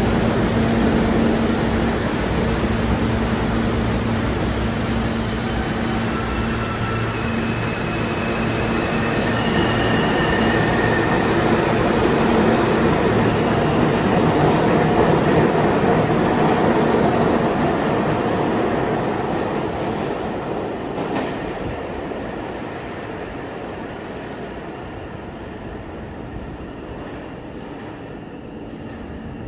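New York City subway train running through a station: a heavy rumble of wheels on rail with several brief high-pitched wheel squeals, loudest about halfway through and then fading as the train moves away.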